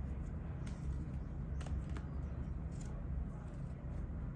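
A few soft clicks of cards being handled over a steady low hum.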